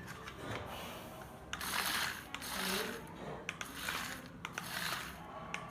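Small geared electric motors of a remote-controlled model combine harvester whirring in short spells, starting and stopping several times, with a few light clicks.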